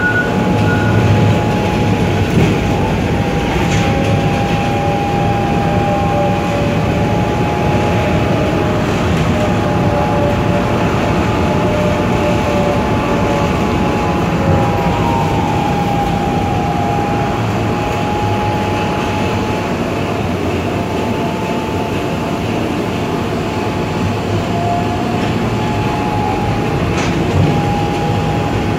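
Tram running, heard from inside the car: a steady rumble of wheels on rails and motors, with a high whine held at one pitch that bends briefly now and then. A couple of light knocks come through, one a few seconds in and one near the end.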